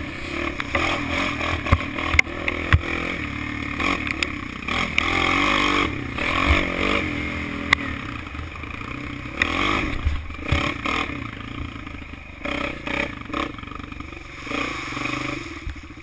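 Kawasaki KFX400 quad's single-cylinder four-stroke engine revving up and down under throttle as it rides a rutted dirt track. Clatter and a few sharp knocks from the machine jolting over bumps.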